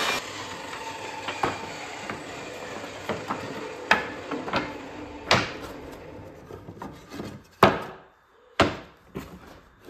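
Pine pallet slats knocking and clattering against each other and the workbench as they are picked up and laid down: several sharp wooden knocks, the loudest about four, five, seven and a half and eight and a half seconds in. Under them a steady table-saw noise fades away over the first several seconds as the saw winds down.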